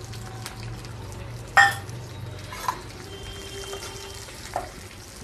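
Steel spoon striking the metal pan once, loudly and with a short metallic ring, then a couple of lighter clinks as gram flour is stirred into melted ghee.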